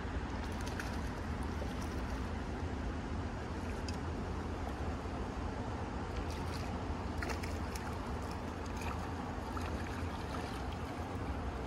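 Steady rush of a shallow, rippling river flowing past, with a low rumble underneath and a few faint sharp ticks scattered through it.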